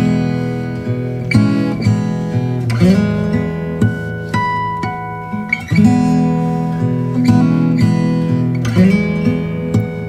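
Background music: an acoustic guitar playing plucked chords and single notes, several of them sliding up in pitch.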